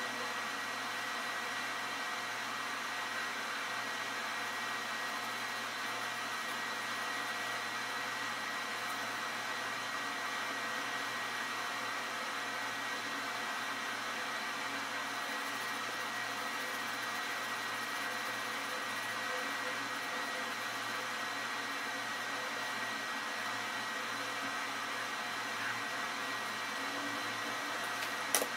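Steady whirring hiss with a few faint steady tones in it, like a fan or other appliance running. One sharp click about a second before the end.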